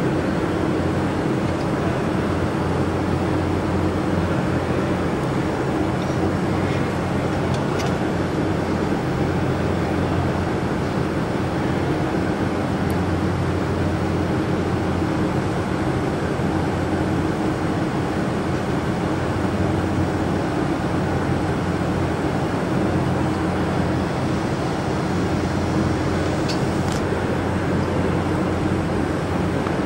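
Steady machine hum with an even rushing noise underneath, unchanging throughout, with a few faint clicks near the middle and near the end.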